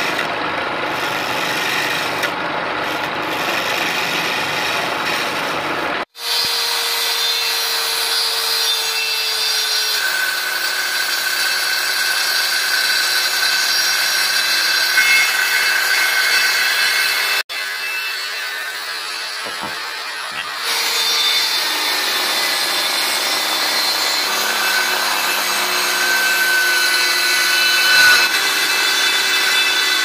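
A chisel scraping a spinning wooden blank on a homemade lathe driven by a washing-machine motor. About 6 s in this gives way to an electric circular saw running with a steady whine and cutting through wooden boards, broken off for a moment once more a little past halfway.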